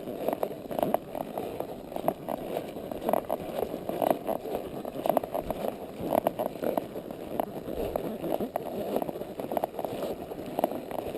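Quarter Horse walking: an irregular series of hoof footfalls over a steady rustling.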